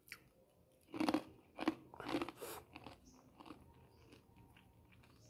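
A crunchy snack being bitten and chewed: a few loud crunches between about one and three seconds in, then quieter chewing.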